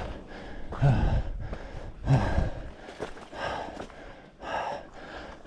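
A hiker breathing hard while climbing, with heavy breaths roughly once a second. Wind buffets the microphone in the first couple of seconds.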